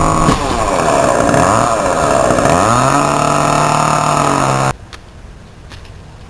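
Chainsaw running, its pitch sagging and recovering as it cuts through branches, then holding steady at speed. It cuts off suddenly about three-quarters of the way through.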